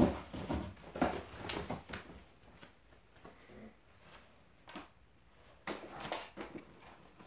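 Dobermann puppies moving about: scattered knocks and scuffles of paws on wooden plank ramps and among bedding, busiest in the first two seconds and again a little past the middle.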